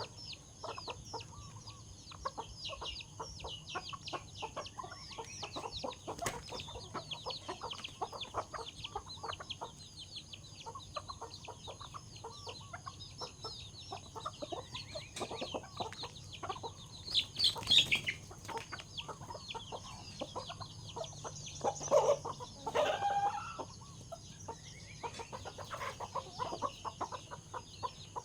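A flock of chickens clucking and squawking while pecking at food, with a steady patter of quick taps. There are louder squawks about two-thirds of the way in and again a few seconds later.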